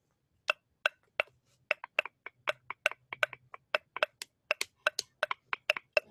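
Two pieces of wood, sticks of branch, knocked together over and over, about four sharp hollow clacks a second in an uneven rhythm.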